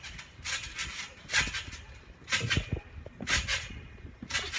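Trampoline being bounced on: each landing on the mat gives a thud with a rush of spring noise, about once a second, five bounces in a row.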